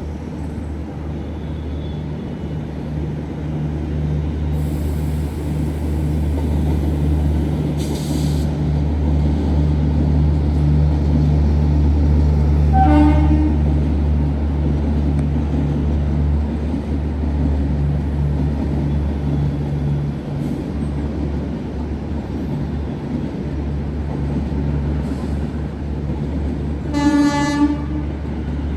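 Suburban electric local train running through the station with a steady low rumble that swells and fades in the middle, and two short horn toots, one about halfway through and one near the end.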